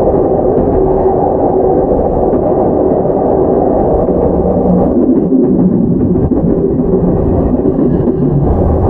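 Running noise heard inside a JR E231-0 series commuter train's motor car: a steady rumble of wheels on the rails with a faint hum from the traction equipment. The low rumble shifts briefly about five seconds in.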